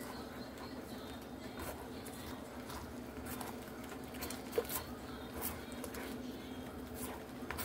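A wooden spatula scraping and knocking against a wok as egg is stirred and scrambled in hot oil, with a light sizzle and irregular taps, over a steady low hum.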